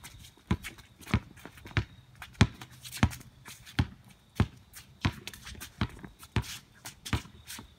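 Basketball dribbled on a concrete court: a steady run of sharp bounces, about one and a half a second, with fainter footsteps and shoe scuffs on the concrete between them.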